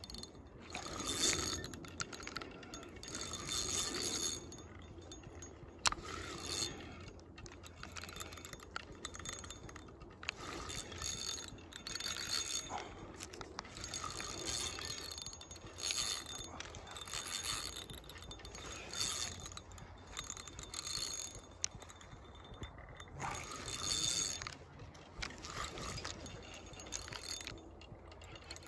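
Shimano spinning reel's drag buzzing in repeated short bursts, about one every two seconds, as a hooked salmon pulls line off the spool.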